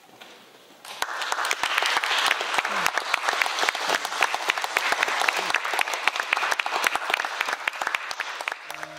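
Audience applause, breaking out about a second in, with sharp single claps from hands close by standing out above it. Just before the end, music with sustained notes begins.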